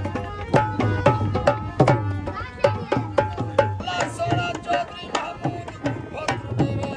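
Live folk music: a harmonium holding chords while a barrel drum (dhol) beats quick, steady strokes.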